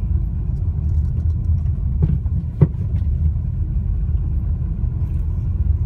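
Volkswagen Touareg driving, with steady low road rumble and two knocks from the front suspension about two seconds in, the second sharper and louder; a faint third follows. The knocking is the sign of a worn strut top mount bearing.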